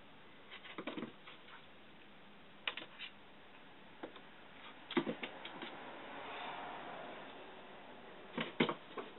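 A house cat's paws and claws tapping and skittering on a wooden floor as it dashes about, in quick clusters of clicks several times over, with a soft rustle in between.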